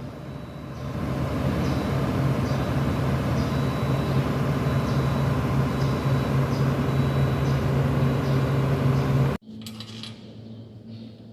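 Shantui SD32 bulldozer's diesel engine running steadily, with a faint high tick or beep repeating a little more than once a second. About nine seconds in the engine sound cuts off suddenly to a much quieter background.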